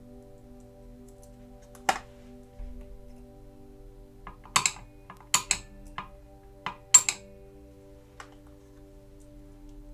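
Sharp metallic clicks of a spring-loaded alligator clip being squeezed open and snapped onto a thin metal rod, about eight clicks between two and seven seconds in, the loudest near the end of the cluster. Soft background music with steady held notes runs underneath.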